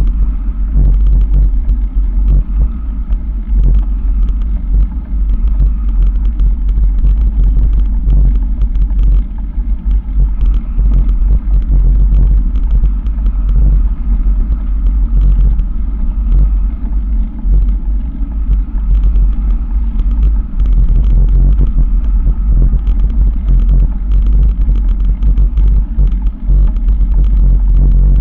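Motorway traffic running past, heard under a heavy, uneven low rumble of wind and jolting on the microphone of a camera moving along a gravel track.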